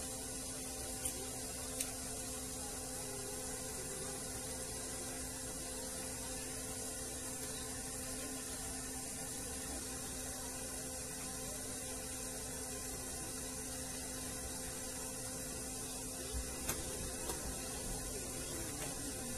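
Steady electrical hum with a constant hiss, broken by a few light clicks about a second and two seconds in and a small cluster of clicks near the end.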